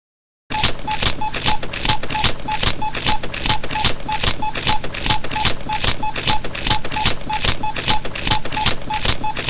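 Fast, even ticking, about four ticks a second, each tick with a short beep. It starts abruptly about half a second in.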